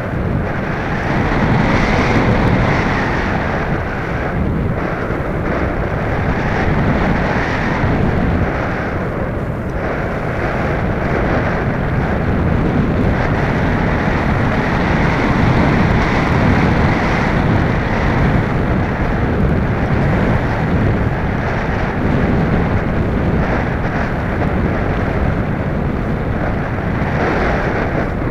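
Airflow rushing over the onboard camera of an EasyGlider Pro RC model glider in flight, a steady noisy wind rush that swells and eases.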